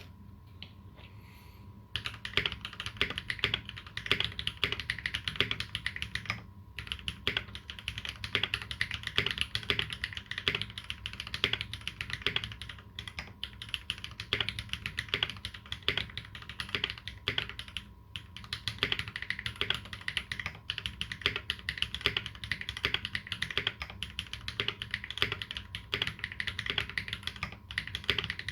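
Dolinger RE 2020 custom mechanical keyboard with lubed Holy Panda tactile switches and GMK keycaps being typed on steadily: a fast, continuous run of key clacks. It starts after about two seconds of quiet, with a couple of short pauses.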